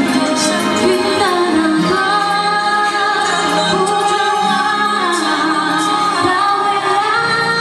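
A woman singing live into a handheld microphone over backing music, her voice holding long, sliding melodic notes.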